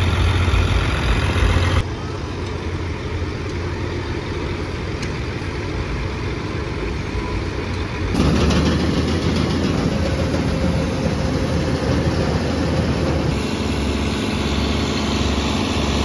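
Caterpillar Challenger tracked tractor's diesel engine running steadily while driving a grain auger that unloads a truck into a bin, the auger's machinery noise mixed in. The sound shifts abruptly about two seconds in and again about eight seconds in.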